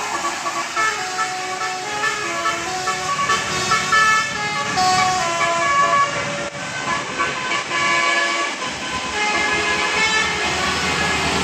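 Bus's telolet Basuri horn, a set of tuned horns, playing a fast melody, with loud notes changing every fraction of a second without a break.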